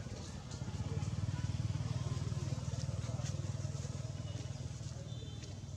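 A motor vehicle's engine running low and steady, growing louder about a second in and slowly fading again, as a vehicle passes.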